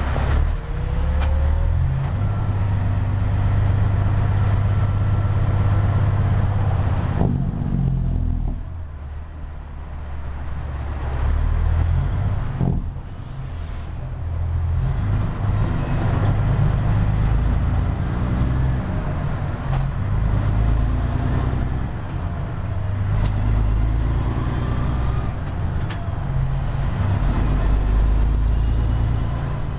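Caterpillar C15 diesel engine of a Peterbilt 379 heard from inside the cab, pulling through the low gears of an 18-speed transmission. The engine note steps up and down with each shift and eases off twice in the middle.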